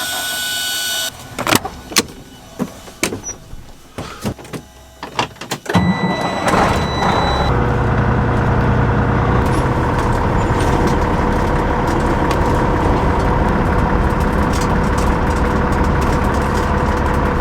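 A few clicks and knocks, like a vehicle door and cab fittings, then a vehicle engine starts about six seconds in and settles into a steady idle.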